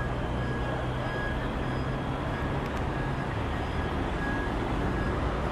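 Steady highway traffic noise: engines of slow, backed-up cars and trucks running, with a low engine hum beneath.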